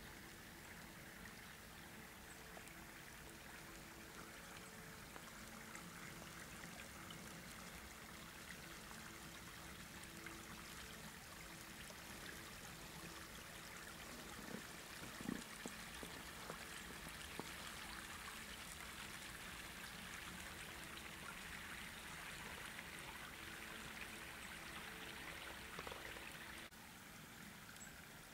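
Faint, steady rush of a small river's flowing water, which drops off abruptly near the end.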